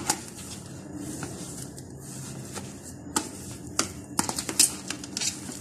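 A spoon stirring mashed potato and spices in a plastic tub: soft mixing with irregular clicks and taps of the spoon against the plastic, coming more often in the second half.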